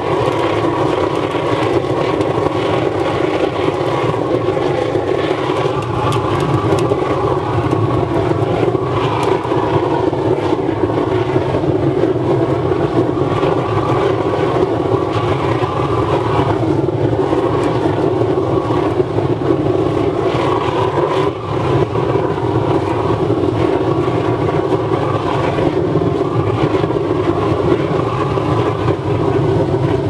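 A 300 kW waste-oil burner firing into a steel drum furnace: a steady, loud rushing noise of the oil flame, with a brief dip a little past twenty seconds in.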